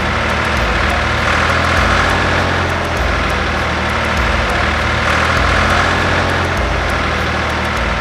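Tractor engine sound effect running steadily at a low, even rumble.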